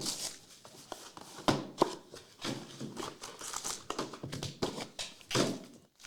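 Plastic wrapping on a trading card box and pack being torn open and handled: crinkling and rustling, with two sharp clicks about a second and a half in.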